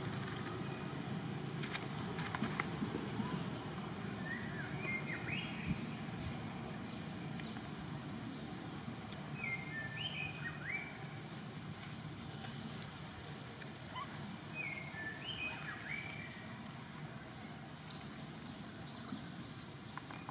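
Outdoor ambience: a bird sings a short warbled phrase three times, about five seconds apart, over a steady high-pitched whine and a low background hum.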